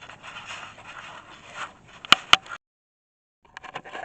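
Scraping and handling noise with two sharp clicks about two seconds in. The sound then cuts out completely for about a second at an edit, and a few light clicks follow.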